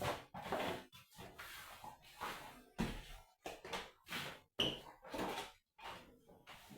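Irregular knocks and bumps with scraping and rustling, coming in short bursts about every half second to a second in a small room.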